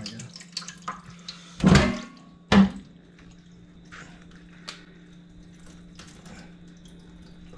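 Water dripping and splashing in a sink, with scattered small clicks. About a second and a half in and again near the three-second mark, two loud knocks of kitchenware sound, the first with a short ring.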